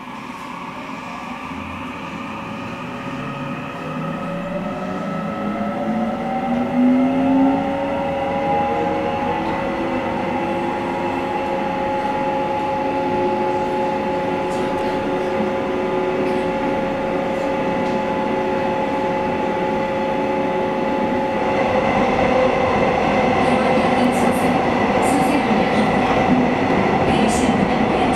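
Seohae Line 391000-series electric train heard from inside a passenger car as it pulls away. The traction motor whine rises in several tones over the first ten seconds as the train accelerates, then holds a steady pitch. From about two-thirds of the way through, rail and running noise grows louder.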